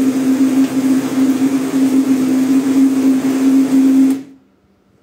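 High-power countertop blender running at full speed, blending a thick vegetable mixture with a steady loud hum. It is switched off about four seconds in and the sound stops abruptly.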